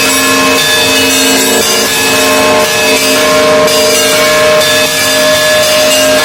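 Russian Orthodox church bells rung together in a continuous peal: several bells at different pitches overlap and ring on, with fresh strokes coming every half second to a second.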